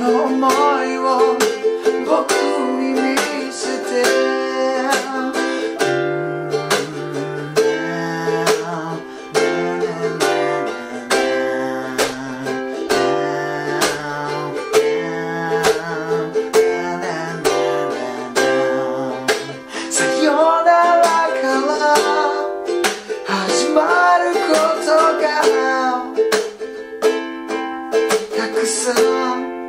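Ukulele strummed in a steady rhythm through the chords C, G7, Am and F, with a man singing over it in Japanese. The singing drops out for a strummed instrumental interlude in the middle, then comes back near the end.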